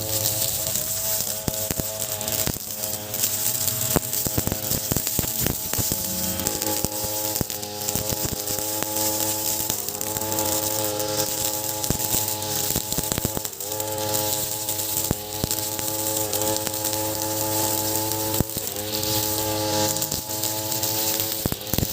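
Ogawa 26cc two-stroke brush cutter running at high revs, its 3.0 mm nylon line spinning through grass with many sharp ticks and crackles. The engine note dips in pitch briefly a few times, about two-thirds of the way through and again near the end, as the line bites into thicker grass, then recovers.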